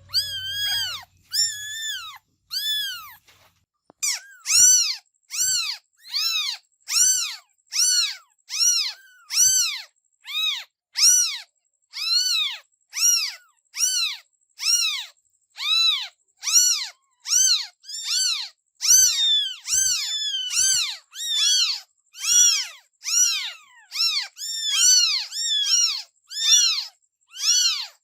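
Kittens meowing over and over: short, high-pitched calls that rise and fall in pitch, about one and a half a second, with a brief pause a few seconds in and some calls overlapping later on.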